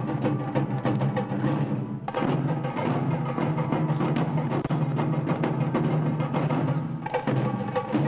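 Action film score with fast, steady drum hits over sustained low tones; the music fills out about two seconds in.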